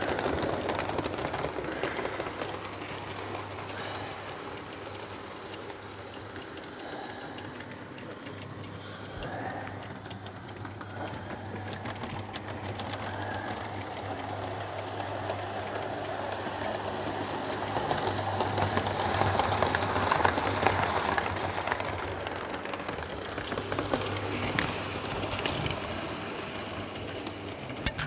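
Model railway trains running on the layout: a small electric motor whirring with wheels rattling and clicking on the track, over a steady low hum. It grows louder about two-thirds of the way through, as a train comes close.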